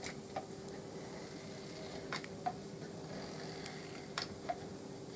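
A manual caulking gun clicking as its trigger is squeezed to push out a bead of sealant, a few light clicks, several in pairs, over a faint steady hum.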